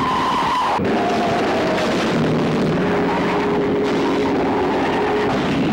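Car engine sounds from a 1970s movie trailer soundtrack, with the pitch jumping abruptly at edits about a second in and again at the end.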